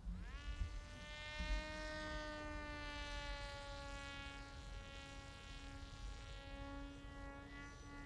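Electric RC flying wing in flight, its Hacker A20-50S brushless motor and APC 7x6 slow-flyer prop giving a buzzing whine with many overtones. The throttle comes up quickly right at the start, then the whine holds steady, sinking slightly in pitch.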